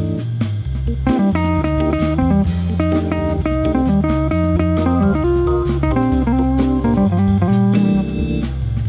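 Live jazz: an electric archtop guitar solos in quick single notes over a sustained organ bass line, with a drum kit keeping time on cymbals.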